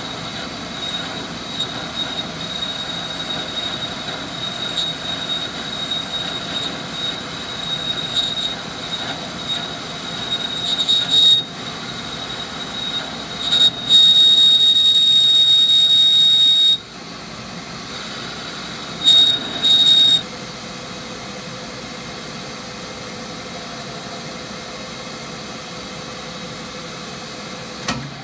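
Metal lathe running as a grooving tool cuts a groove into a spinning metal part. The cut makes a steady high-pitched squeal, rising to three louder squealing spells in the middle, the longest about three seconds.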